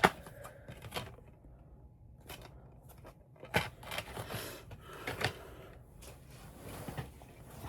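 Plastic DVD case being handled, with scattered clicks and a stretch of rustling and scraping in the middle.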